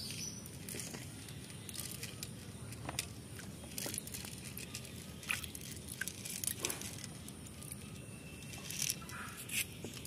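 Faint water sounds in a shallow pond: a few soft splashes and drips scattered through, over a quiet background.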